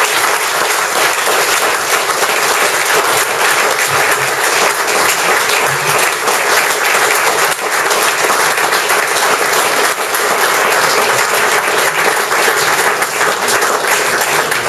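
Audience applauding, many hands clapping in steady, sustained applause.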